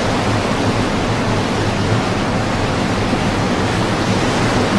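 Steady rushing noise of wind and open sea water, with no distinct events.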